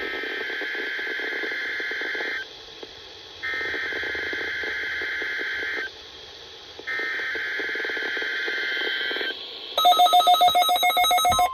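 NOAA Weather Radio SAME alert header for the monthly test: three bursts of warbling digital data tones, each about two and a half seconds long with a second's gap between them. Near the end comes a loud, rapidly pulsing electronic beep.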